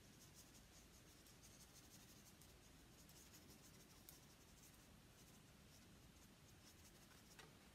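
Near silence with faint, irregular scratchy ticks of a small paintbrush dabbing oil paint onto a gesso-coated plywood board.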